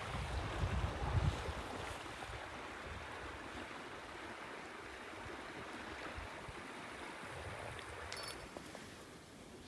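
Wind noise outdoors: a breeze buffeting the microphone in low gusts at first, over a steady hiss of wind through tall grass. A brief clicking about eight seconds in.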